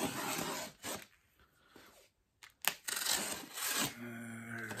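A shipping box being opened by hand: irregular scraping, rubbing and tearing of cardboard and packing material, with a sharp click about two and a half seconds in.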